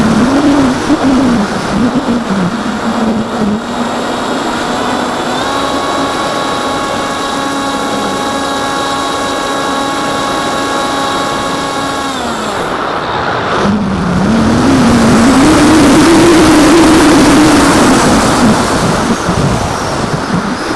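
Electric motor and propeller of an AXN foam FPV plane, heard through the onboard camera together with wind rushing over the airframe. The motor's pitch wavers with the throttle, holds steady in the middle, slides down and stops near the middle, then comes back rising and louder.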